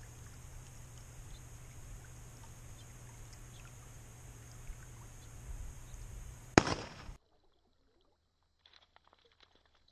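A single sharp, loud bang about six and a half seconds in, typical of a distant shotgun shot, over a faint, steady outdoor hiss and low rumble. The sound cuts off abruptly soon after.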